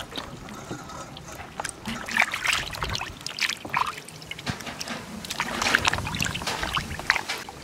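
Water sloshing and splashing in a plastic basin as hands rub and rinse a whole raw chicken, in uneven splashes.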